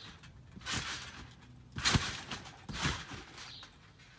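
Trampoline bouncing: three thumps of the mat about a second apart, the second the loudest and deepest, as the jumper builds height for a flip.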